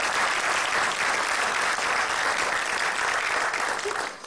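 Audience applauding steadily, then dying away about four seconds in.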